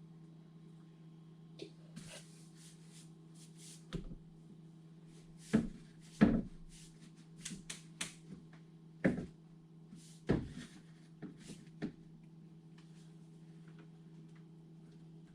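Scattered knocks, clatter and rustling of PVC pipe and fittings being handled during a vent-pipe install, with the loudest knocks about five and a half, six, nine and ten seconds in. A steady low hum runs underneath.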